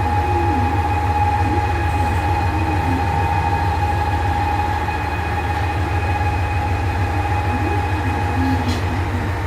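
KiHa 189 series diesel railcar's engine running steadily at the platform: a continuous low throb with a steady high whine over it and no change in pitch.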